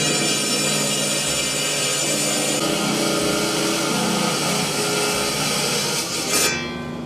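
Lapidary wet saw blade cutting through a septarian nodule: a loud, steady, high grinding whine. About six and a half seconds in, the cutting noise falls away, leaving the saw motor running more quietly.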